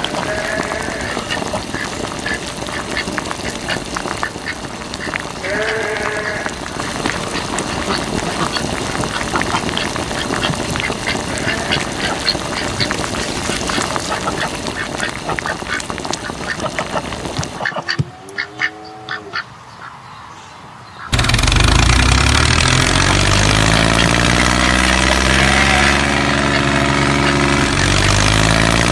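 A few duck quacks over a steady rustling, ticking background. About two-thirds of the way through, an engine starts and runs much louder, its pitch rising a little and then holding steady.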